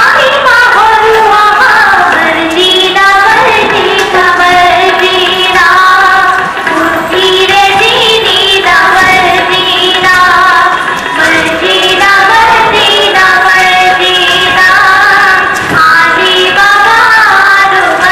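A song: high voices singing a continuous melody over musical accompaniment.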